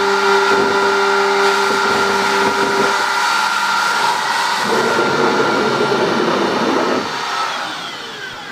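CNC router spindle running with a steady high whine as its bit trims a thermoformed plastic part, with a rougher cutting noise for a couple of seconds past the middle. Near the end the whine falls in pitch and fades as the spindle winds down.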